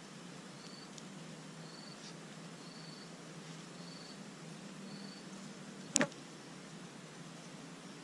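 An insect chirping in the background: a short high-pitched chirp about once a second, which stops about five seconds in. A single sharp click about six seconds in is the loudest sound.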